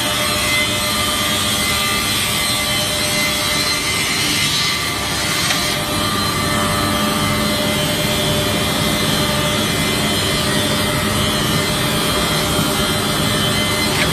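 Multiple-blade wood rip saw with top and bottom planer heads running, a loud, steady machine drone with several steady whining tones.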